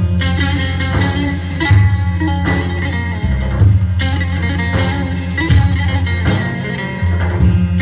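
Instrumental music: a plucked-string melody over sustained bass notes, the introduction to a Turkish song, with no singing yet.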